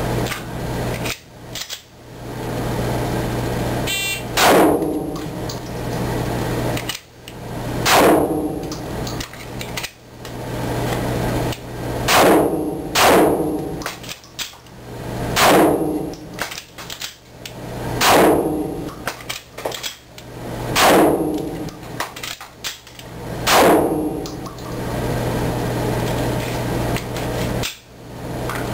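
Glock 34 pistol worked through a dry reload drill: sharp metallic clacks of magazines and the slide, about eight of them a few seconds apart, each with a short fading ring. A steady low hum runs underneath.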